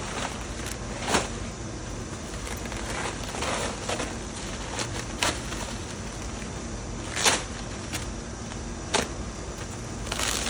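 Plastic bags and paper packing material crinkling and rustling in short bursts every second or two as parts are pulled from their wrapping, over a steady low background rumble.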